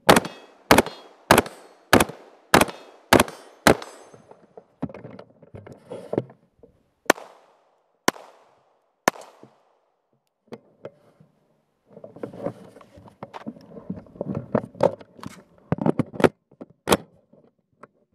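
AR-15-style rifle firing: a steady string of seven shots about 0.6 s apart, each with a short ringing tail. Then three single shots about a second apart, and near the end a quicker, irregular run of shots.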